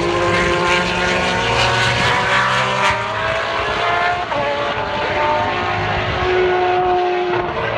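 Several older Formula One V8/V10 engines running at high revs at the same time, each pitch sliding slowly up or down as the engines rev and lift.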